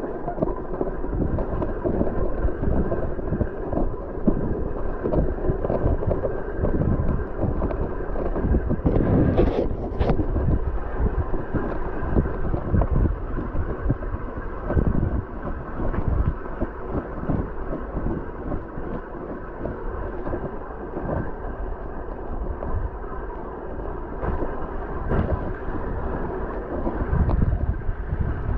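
Mountain bike ridden over wet, muddy gravel: wind buffeting the camera microphone over the rumble of the tyres, with a faint steady scraping from the rear brake, where a jammed caliper piston holds the bent disc grinding against the caliper.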